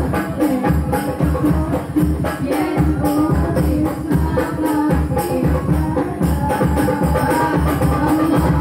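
Hadroh ensemble: women's voices singing an Islamic devotional song through microphones, over rebana frame drums beating a steady rhythm.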